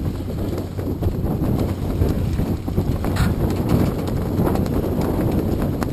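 Wind buffeting the microphone: a dense low rumble broken by many irregular knocks.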